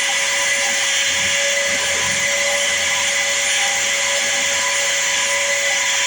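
Power sanding tool running steadily with a constant whine and hiss, sanding the knife's red oak handle to round it off.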